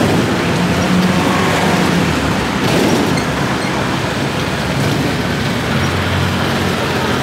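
Steady road and engine noise of a vehicle ride, as heard from the open back of a songthaew pickup taxi.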